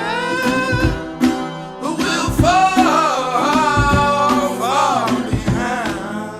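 Song with a voice singing long, wavering notes without clear words over strummed acoustic guitar, with a sharp beat about once a second.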